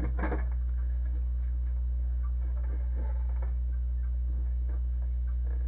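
Steady low electrical mains hum, with faint scattered clicks and knocks from the monitor's case being handled as its cover is lifted.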